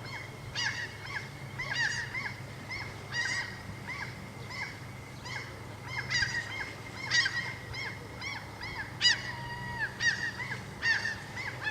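A flock of birds calling over one another: short, arching, honking calls, several a second, with no pause. A steady low rumble sits underneath.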